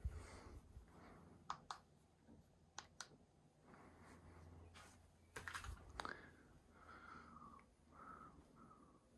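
Near silence: a five-blade ceiling fan running with a faint low hum, with scattered sharp clicks.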